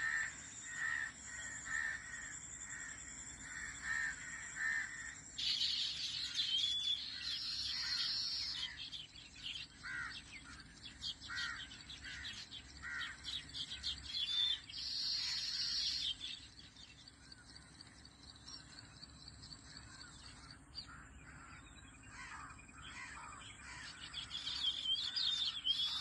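Birds calling and chirping: at first a steady series of repeated harsh calls, then from about five seconds in a busier mix of higher chirps and short whistles, fading somewhat and picking up again near the end.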